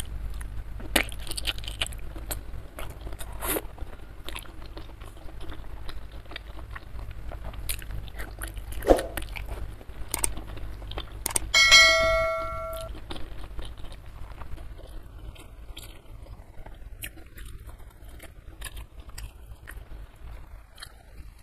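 Close-miked chewing and biting of spicy gulai kikil (stewed beef-foot skin and tendon) with rice, a run of small wet clicks and crunches. About twelve seconds in, a short bell-like chime rings for about a second, the sound effect of an on-screen subscribe reminder.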